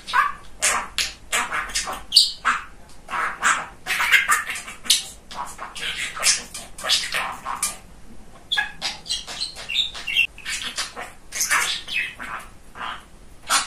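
Pet budgerigar chattering: a fast, unbroken stream of scratchy warbles, chirps and short squawks, with a brief pause about eight seconds in.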